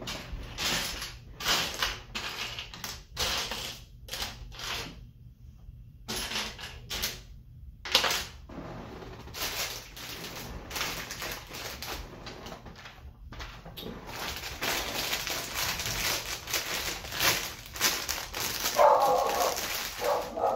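Plastic Lego pieces clicking and rattling as they are handled and snapped together, with denser rustling in the second half. A dog whines briefly near the end.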